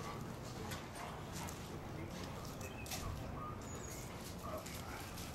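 Faint dog whining in short high calls, with scattered light clicks over a steady low hum.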